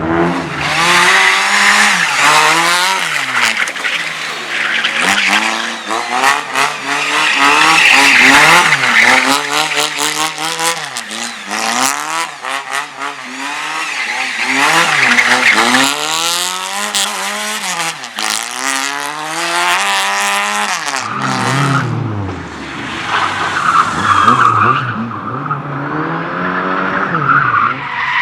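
A drift car's engine revving up and falling back over and over as it slides through the course, with the tyres squealing through much of it. About three quarters of the way through, the revs drop right down and then build again.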